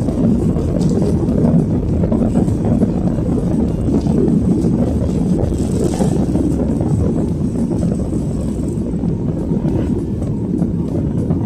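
Jet airliner engines heard from inside the passenger cabin: a loud, steady, low rumble of engine and airflow noise.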